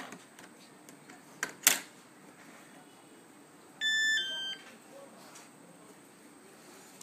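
Two sharp clicks, then a short electronic beep from what is most likely a Walkera Devo F4 radio transmitter. The beep lasts under a second and steps down to a lower pitch halfway through.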